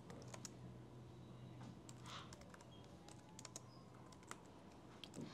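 Faint computer keyboard typing: irregular key clicks spread through as a short phrase is typed.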